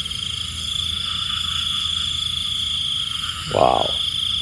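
Steady, high-pitched night chorus of calling frogs and insects, continuous and unbroken.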